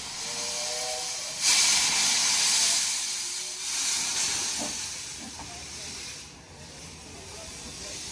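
Corris Railway No. 10 narrow-gauge steam locomotive blowing steam with a loud hiss from low at its front end, where the cylinder drain cocks sit. The hiss comes in about one and a half seconds in, swells again near four seconds, then fades.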